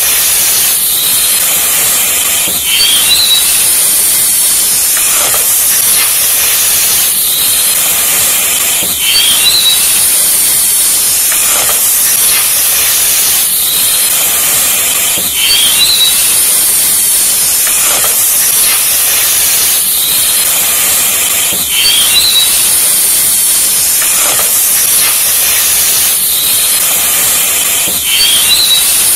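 Loud, steady hissing noise that repeats as a loop about every six seconds, with a brief faint chirp at each repeat.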